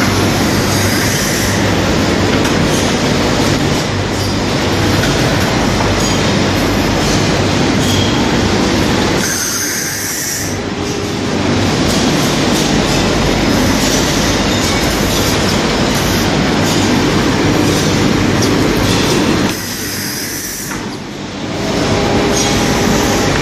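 Glass-lid cutting machine running with a loud, steady mechanical noise and a low hum. It goes briefly quieter twice, near the middle and near the end.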